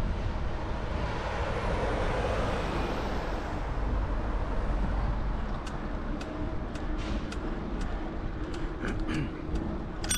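Road traffic noise over a steady low rumble, with a vehicle passing that swells and fades in the first few seconds. Faint scattered ticks come in the second half.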